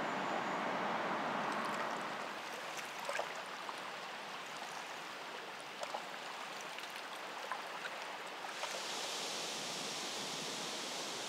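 Steady rushing of flowing river water, dropping about two seconds in to a quieter wash with scattered small clicks and crackles, then giving way near the end to a brighter, even hiss.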